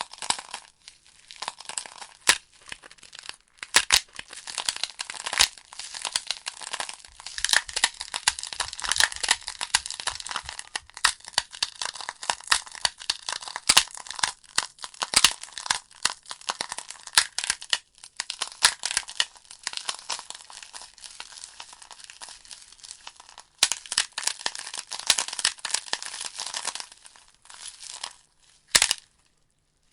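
Burning logs in a fireplace, crackling and popping: a dense, irregular run of sharp snaps and pops, thinning briefly near the end.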